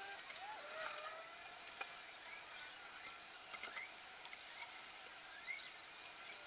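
Faint fizzing and irregular crackling pops of aerosol paint stripper working on the painted aluminium motorcycle fuel tank as the paint softens and bubbles up, with a few short rising chirps in the background.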